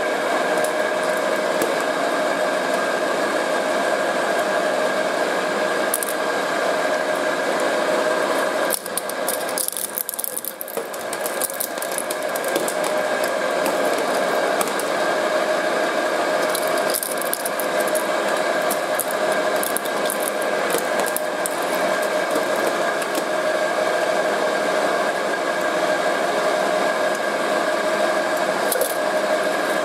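Twin-shaft shredder running empty, its motor and gearbox giving a steady whine as the cutter discs turn. The sound dips briefly about a third of the way through and then steadies again.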